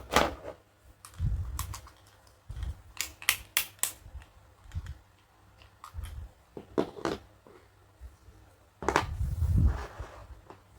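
Small plastic toy pieces being handled, giving separate sharp clicks and light knocks, with a quick run of four clicks about three seconds in and a longer clattering shuffle near the end.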